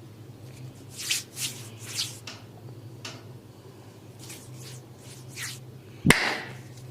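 A barber's hands rubbing and brushing over skin and hair during a head and neck massage, in a few soft swishes, then one loud sharp smack near the end.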